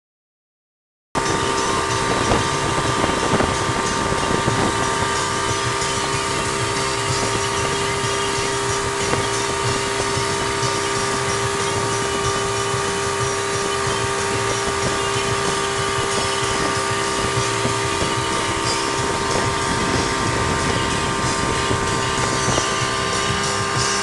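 Outboard motor on a speedboat running at a steady high speed, with its hum holding one pitch, over the rush of the wake and wind on the microphone; the sound starts about a second in after a short silence.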